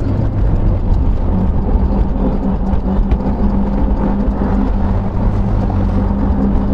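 Car driving, heard from inside the cabin: engine hum and tyre rumble, with a steady engine tone settling in about a second and a half in as the car picks up speed after a turn.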